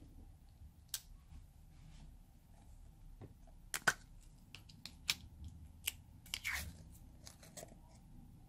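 A small plastic slime tub being handled and its lid pried off: scattered light plastic clicks and taps, with one slightly longer scraping rustle past the middle.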